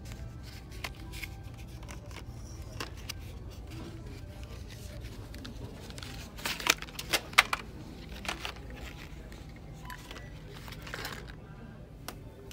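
Plastic-packaged cosmetics being handled, clicking and rattling, with a quick run of sharper clacks midway through; a steady low store hum underneath.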